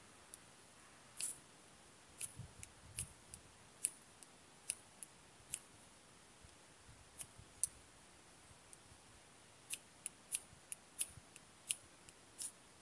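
A ferro rod scraped with a striker again and again, about twenty short, sharp scrapes in two runs with a pause of about two seconds in the middle. It is throwing sparks to relight tinder that has gone out.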